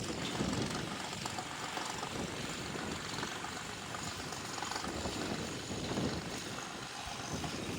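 New Holland 3630 tractor's diesel engine running steadily through a newly fitted exhaust silencer.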